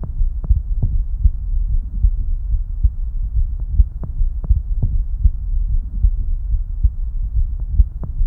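Heartbeat picked up through a mobile stethoscope fitted with a superhydrophobic layered surface: a run of low lub-dub thuds over a steady low rumble.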